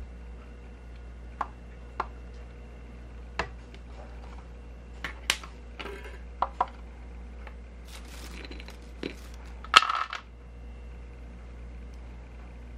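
Sharp clicks and taps on a white plastic dog bowl with a built-in digital scale, spaced a second or more apart, then pieces of dried meat treat dropping into the bowl, with a short clatter of several pieces about ten seconds in, the loudest sound.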